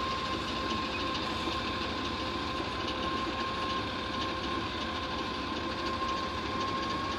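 Hitachi UH04D wheeled excavator's diesel engine running steadily while it digs, with a steady high whine over the engine.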